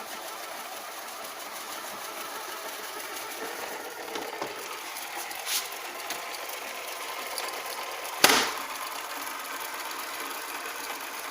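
Alfawise V8S robot vacuum cleaner running with a steady motor whir. There is a brief click about five and a half seconds in and a loud, sharp knock a little past eight seconds.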